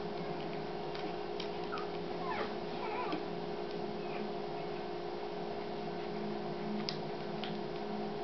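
Newborn Doberman puppies squeaking while nursing: short high rising chirps, several in the first few seconds and a couple more later, over a steady low hum.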